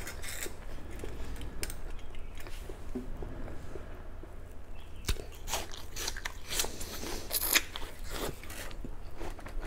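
Crunchy bites into a slice of Fuji apple and chewing: quiet mouth sounds at first, then a run of crisp crunches in the second half.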